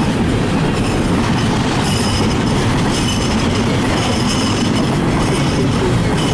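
CN freight train rolling slowly past at close range: a steady rumble of wheels on rail, with faint high-pitched wheel squeals that come and go.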